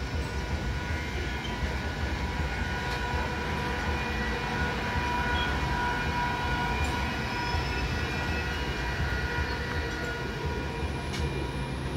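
Electric multiple-unit local train passing close by: a steady rumble of wheels on the rails with a steady high whine over it and a few light clicks.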